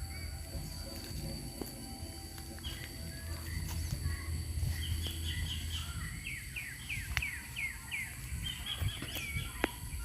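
A bird calling a run of short chirps, each falling in pitch, about three a second, for several seconds from a few seconds in, over a steady high-pitched tone and a low rumble.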